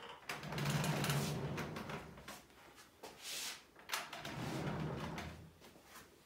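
Wooden ware boards holding thrown plates are slid and scraped across a wooden rack twice, with a few light wooden knocks in between.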